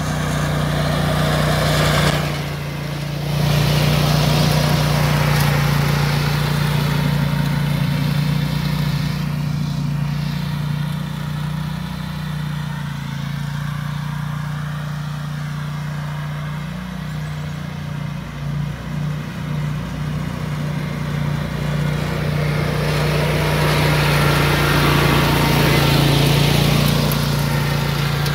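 Zero-turn riding mower's engine running steadily as it tows a lawn sweeper. It fades as the mower moves off across the lawn and grows louder again as it comes back close near the end.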